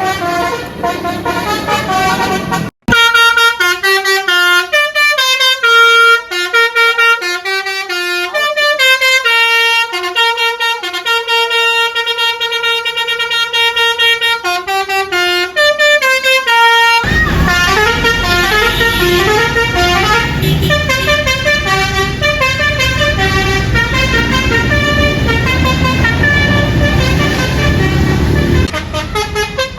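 Bus 'telolet' musical air horn of the Basuri type, playing a tune of short stepped notes. A brief dropout comes about three seconds in. From about halfway on, a heavy low rumble lies under the horn.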